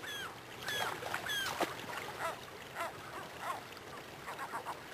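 Gulls calling again and again, short calls that bend in pitch, over the steady noise of fast river water running through rapids.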